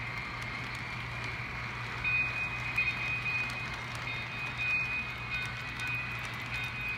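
Lionel model train running on its track: a steady hum with an even rolling rumble, joined about two seconds in by a high whine that comes and goes.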